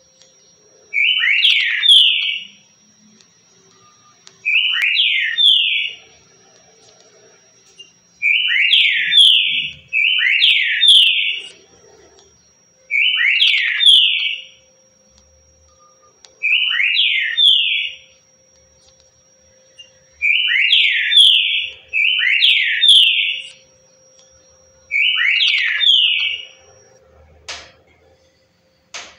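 Green-winged saltator (trinca-ferro) singing its 'currucutil' song: the same short phrase of about a second and a half, repeated nine times with pauses of one to three seconds.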